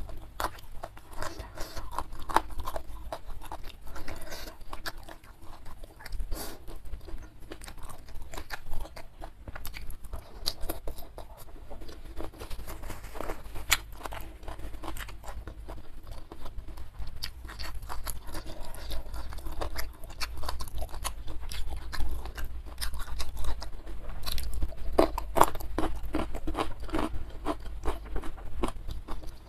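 Close-miked chewing: a steady run of crisp crunches as a person chews food, a little louder for a few seconds past the twenty-second mark.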